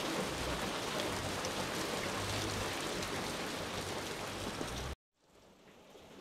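Steady rain falling, an even hiss. It cuts off abruptly about five seconds in, then fades back in faintly.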